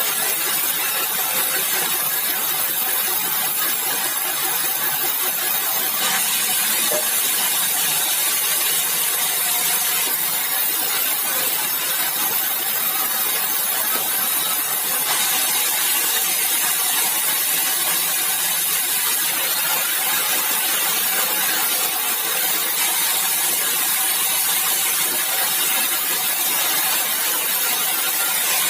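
Sawmill saw running and cutting bengkirai hardwood: a loud, steady noise that goes on without a break.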